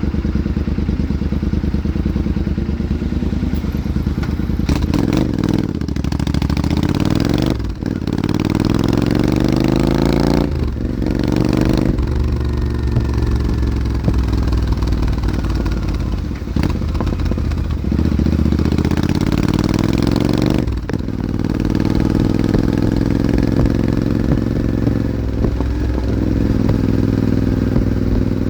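Royal Enfield motorcycle exhaust while riding, the engine note rising under acceleration and cutting briefly at several gear changes before settling into a steady cruise.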